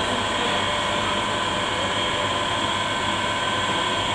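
Steady whirring of a humidity-control rig's humidifier and recirculation fan running, an even rush of air with a few steady whining tones over it. The humidifier is running to raise the room's humidity toward its setpoint.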